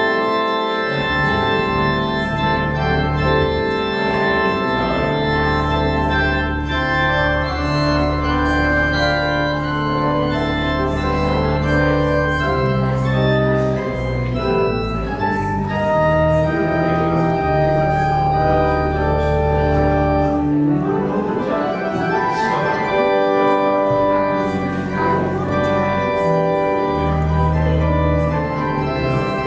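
Church organ playing slow, sustained chords over a deep held bass line, the notes changing every few seconds.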